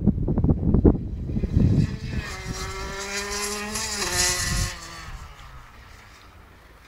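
Honda CR125 two-stroke single-cylinder motocross bike passing at speed: its high engine note grows from about two seconds in, drops in pitch as it goes by just after four seconds, and fades away. Wind buffets the microphone at first.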